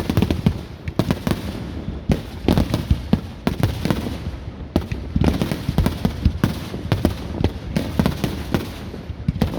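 Fireworks display going off in a rapid, unbroken barrage of bangs, several a second, the deep booms the loudest part.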